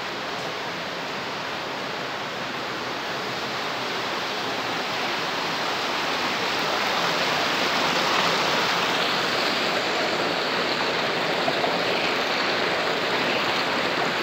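Shallow rocky creek running, a steady rush of water that grows gradually louder.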